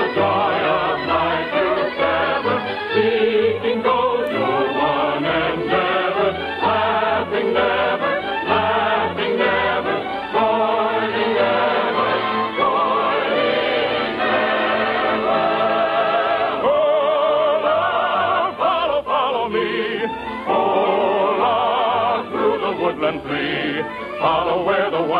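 Choir singing a gypsy song from an operetta, with orchestral accompaniment, on an early-1950s radio broadcast recording.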